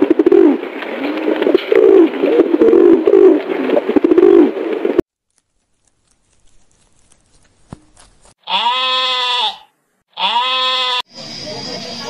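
Pigeons cooing in a warbling flock for about five seconds. After a quiet stretch come two short pitched cries about a second long each, and a steady hissing noise starts just before the end.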